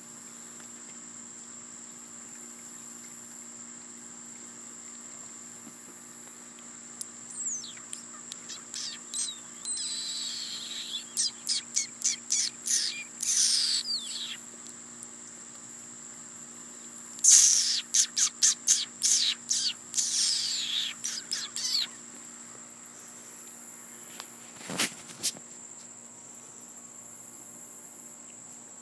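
A steady high insect drone, with two bouts of rapid, high-pitched chirping calls and falling squeaks, one about a quarter of the way in and a louder one past halfway. A single short knock comes near the end.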